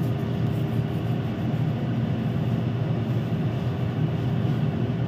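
Steady low mechanical hum of a running kitchen appliance, with a faint steady tone above it.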